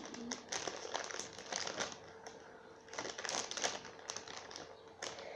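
A crinkly plastic chips bag being handled, rustling and crackling in irregular bursts, with a faint steady hum underneath.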